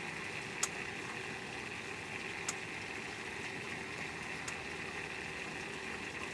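Steady hum and water rush aboard a fishing boat, with three sharp clicks about two seconds apart.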